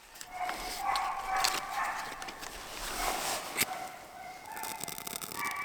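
Dog whining in long, high, drawn-out cries that shift in pitch, with a few sharp snaps among them.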